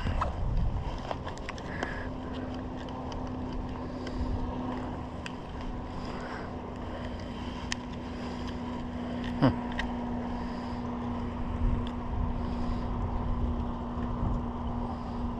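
Steady boat motor hum over low wind rumble on the microphone, with faint scattered clicks and one sharper knock about nine and a half seconds in.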